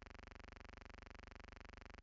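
Near silence: a faint, steady electrical hum and hiss with no other sound.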